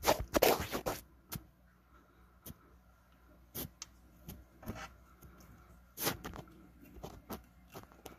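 Sharp clicks and light knocks from metal feeding tongs being handled in a plastic frog enclosure: a burst of clatter in the first second, then single clicks about once a second.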